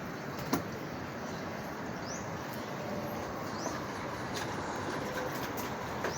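Steady rumbling background noise, with a few short rising bird chirps and a single sharp click about half a second in.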